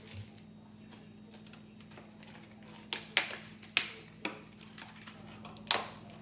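About five sharp knocks and clicks of hard items being handled and set down, spread over the second half, over a low steady hum.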